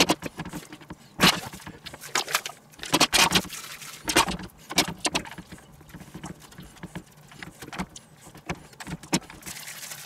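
Irregular clicks, taps and rustles as raw pork medallions are pressed and handled in a stainless steel tray and spice rub is shaken and knocked out of a paper bag.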